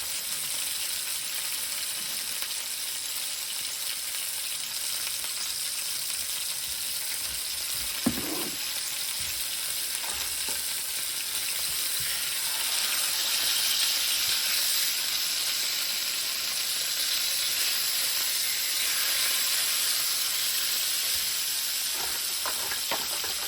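Food frying on a hot cooking surface with a steady sizzle that grows louder midway. There is a single sharp knock about eight seconds in and a couple of light knocks near the end.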